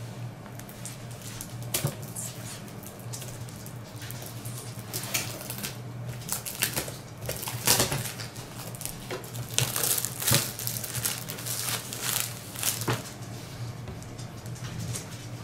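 Toy packaging being opened and handled by hand: irregular rustling, crinkling and light clicks and knocks, busier and louder from about a third of the way in.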